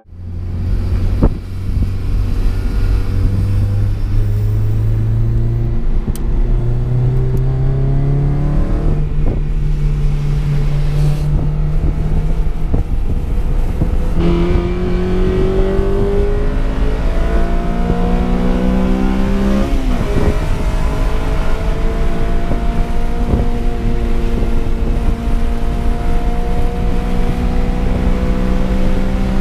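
Honda Civic Si's 2.0-litre K20 four-cylinder engine heard from inside the cabin while driving hard: its pitch holds, climbs and changes in steps several times as the gears and revs change, with a drop about twenty seconds in. A steady rumble of road and wind noise runs underneath.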